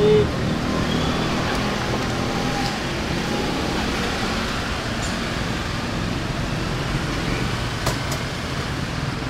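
Steady street traffic noise, a dense even rumble of passing vehicles, with a short click about eight seconds in.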